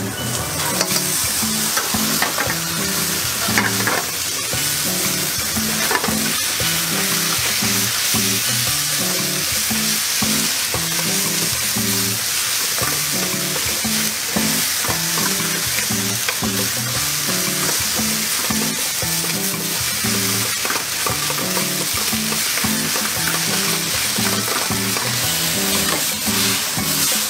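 Rice stir-frying in a wok: a steady sizzle, with a wooden spatula scraping and knocking against the pan. Music with a repeating low melody runs underneath.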